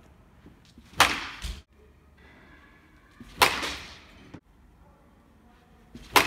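A baseball bat hitting balls off a batting tee: three sharp cracks about two and a half seconds apart, each ringing out briefly.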